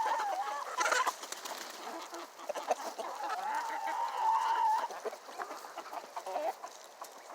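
Chickens clucking and calling, hungry and waiting to be fed, with one longer wavering call in the middle.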